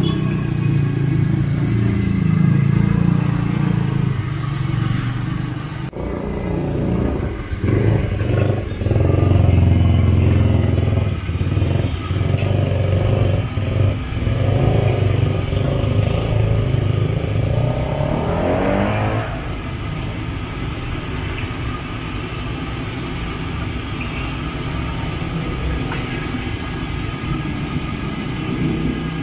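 Passing road traffic: motorcycle and car engines running, with one engine revving up in a rising glide a little before two-thirds of the way through. After that it settles to a steadier, quieter hum.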